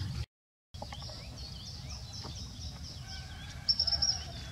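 Small birds chirping over and over in short high notes over a steady low rumble of outdoor ambience. About three and a half seconds in there is a brief, louder high trill. Near the start the sound cuts out completely for about half a second.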